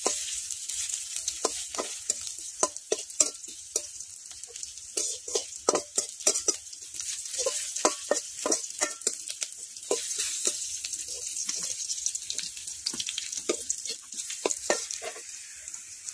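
Sliced onions sizzling in hot oil in a metal karahi, with a metal spatula scraping and knocking against the pan in irregular strokes as they are stirred.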